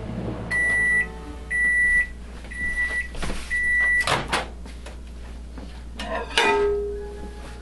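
Microwave oven beeping four times, about one beep a second, as its heating cycle ends. Then the door latch pops open, and a glass bowl clunks as it is lifted out.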